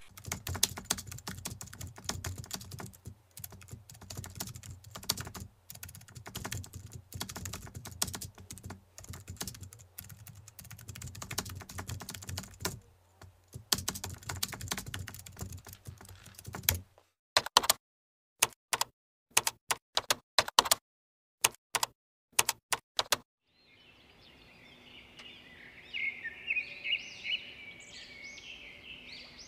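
Computer keyboard typing: rapid continuous key clicks, then a handful of separate keystrokes with gaps between them. Near the end the typing stops and birds chirp over a faint outdoor background.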